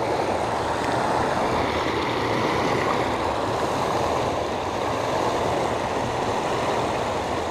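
Steady rushing of churning, foaming river water, an even noise that does not change.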